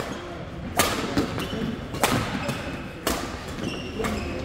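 Badminton racket strikes on a shuttlecock during a doubles rally: three sharp hits about a second apart, echoing in a large sports hall.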